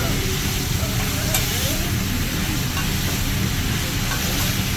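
Food sizzling on a teppanyaki griddle, a steady hiss over the low hum of a busy restaurant, with faint background chatter and a light click about a second and a half in.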